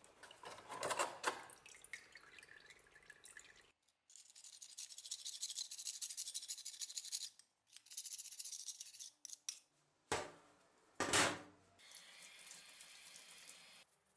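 Liquid sloshing as a gloved hand works in a tray of rust-removing liquid, then a scraper rasping loosened rust off an old steel cleaver blade in several long strokes with short breaks. Near the end, water sprays over the blade in a steel sink.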